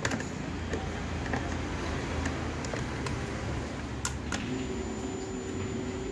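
A screwdriver working on the terminal bolts of a new scooter battery, giving a few sharp clicks, two of the loudest close together about four seconds in, over a steady low hum.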